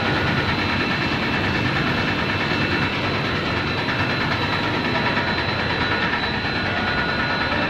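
Machinery of a continuous snack frying production line running steadily: an even mechanical noise with a few constant high whining tones through it.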